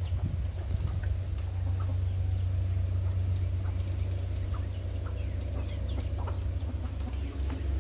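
Young roosters clucking, with many short, scattered calls that fall in pitch, over a steady low hum.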